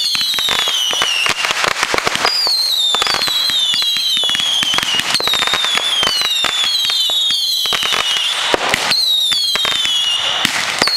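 A rack of large Roman candles firing: a rapid string of sharp pops and crackles, with overlapping high whistles, each falling in pitch over about a second.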